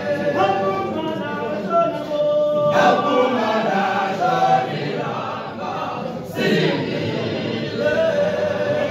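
A group of voices singing together unaccompanied, choir-style, in phrases of held notes.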